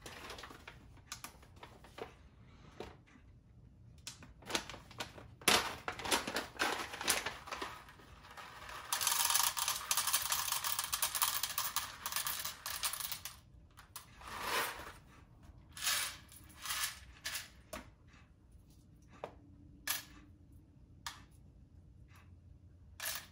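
A paper-and-foil coffee bag crinkling steadily for a few seconds midway as it is handled. Around it are scattered clicks, and near the end single whole coffee beans click into a plastic cup on a scale as an 18.5 g dose is weighed out.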